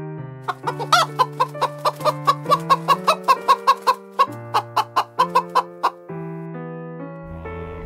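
Domestic hens clucking in a fast run of short clucks, about four a second, stopping about six seconds in, over background music.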